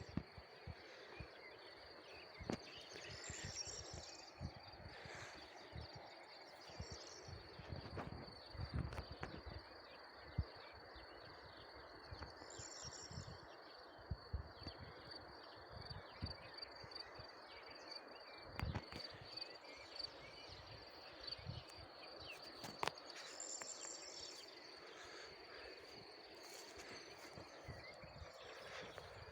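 Insects trilling steadily and high-pitched over a faint outdoor hiss, with a brief higher chirping burst about every ten seconds. Scattered soft knocks and clicks are heard close by.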